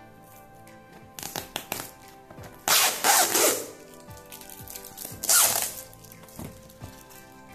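Clear plastic packing tape being ripped off a cardboard box in several loud tearing pulls, the longest and loudest about three seconds in and another a little past five seconds, over steady background music.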